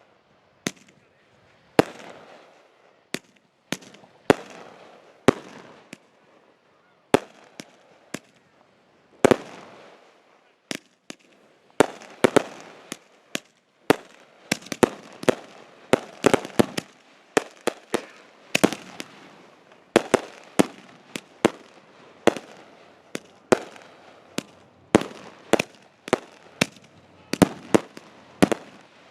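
Fireworks going off: sharp bangs, each with a fading echo, spaced apart at first and then coming several a second from about twelve seconds in.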